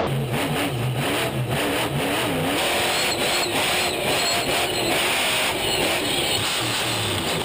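Grave Digger monster truck engine revving hard, its pitch rising and falling over and over as the throttle is worked.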